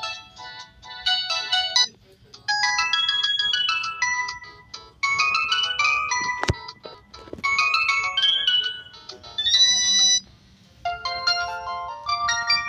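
Feature-phone ringtone melodies: quick sequences of short electronic notes in phrases, pausing briefly about two seconds in and again near ten seconds. A single sharp click about six and a half seconds in.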